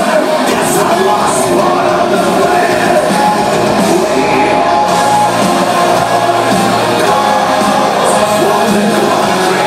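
Heavy metal band playing live: loud distorted guitars and drums with a singer's voice over them.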